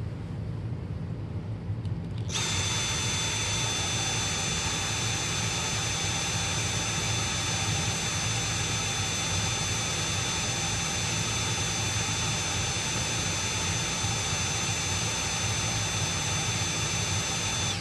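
Dyson V7 cordless stick vacuum switched on at low power about two seconds in, running with a steady rush of air and a high, even whine, drawing air through an anemometer fitted over its cyclone intake. It cuts off at the end.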